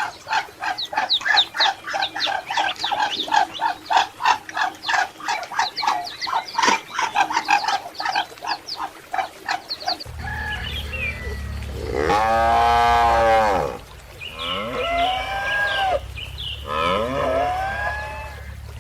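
Ducks quacking rapidly for about ten seconds. After a cut, a steady low background with several long animal calls that each rise and fall.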